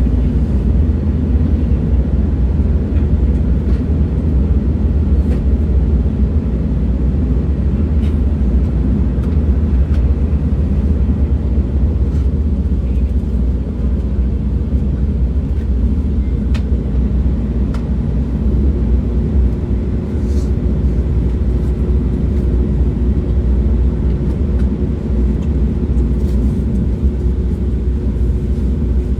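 Train running at steady speed: a continuous deep rumble with a hiss of noise above it and a few faint ticks. A faint steady hum joins about two-thirds of the way through.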